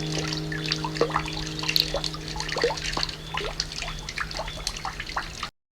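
Water dripping and trickling in many small ringing plinks, over the last of a held piano chord dying away. It all cuts off suddenly near the end.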